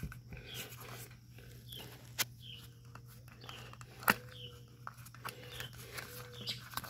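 Rubber dust cap being pressed and worked around onto a riding mower's front wheel hub: faint squeaks and two sharp clicks about two and four seconds in, over a low steady hum.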